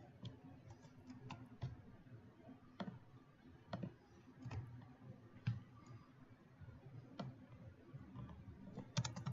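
Faint, irregular clicks of a computer mouse and keyboard, with a quick run of keystrokes near the end.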